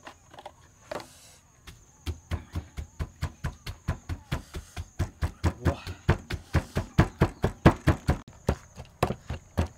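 Wooden pestle pounding in a mortar, a steady run of knocks at about three to four strokes a second, starting about two seconds in.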